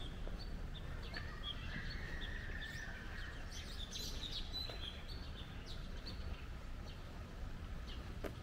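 Small birds chirping and calling, with a busier stretch of overlapping chirps and a longer warbling call in the first half, over a steady low background rumble.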